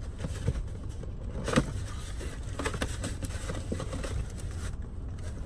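A cardboard box being handled inside a car, giving a string of small rustles, scrapes and clicks, with one sharper knock about a second and a half in. Under it runs a steady low rumble.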